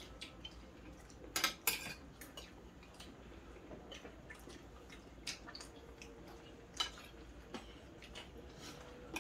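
Forks and spoons clinking and scraping on ceramic dinner plates as people eat, in scattered short clicks. A louder cluster of clinks comes about a second and a half in.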